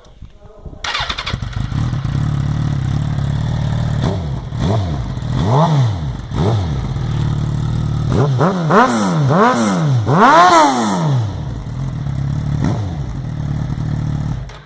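Suzuki GSX-R1000 inline-four with an aftermarket Hurricane sport exhaust, running loud. It starts about a second in and settles to idle. A string of quick throttle blips follows, each rev rising and falling. It shuts off near the end.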